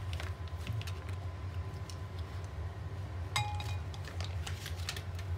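Light scrapes and taps of a silicone spatula pushing butter from its foil wrapper into a glass measuring jug, with one brief ringing clink of the spatula against the glass a little past three seconds in. A low steady hum runs underneath.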